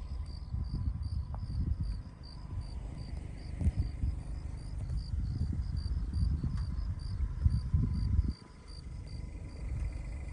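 Crickets chirping in a steady rhythm, about three to four chirps a second, over a louder low rumbling noise on the microphone that drops out suddenly about eight seconds in.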